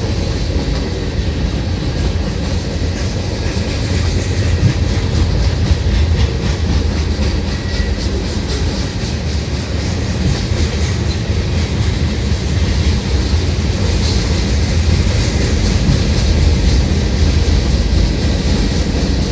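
Freight cars of a long freight train, covered hoppers, boxcars and tank cars, rolling steadily past at close range: a continuous rumble of steel wheels on rail with repeated clicking as the wheels cross the rail joints.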